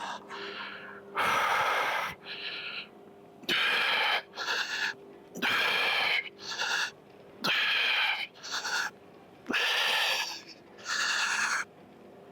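A person breathing hard from exertion in a steady rhythm: a loud, hissing breath followed by a shorter one, about every two seconds.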